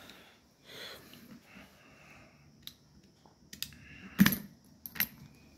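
A backpack being handled on a table: a few light clicks and small knocks over quiet room tone, the loudest about four seconds in.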